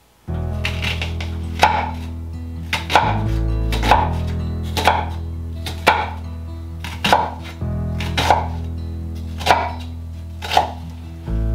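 Chef's knife slicing through an onion onto an end-grain wooden cutting board, a sharp knock on the board about once a second, over background music with sustained low chords.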